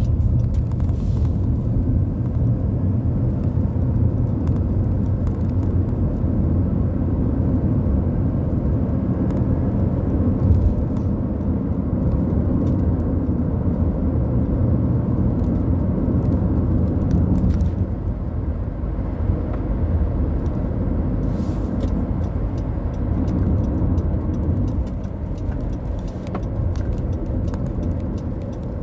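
Road noise inside a moving car's cabin: a steady low rumble that becomes a little quieter a little past halfway.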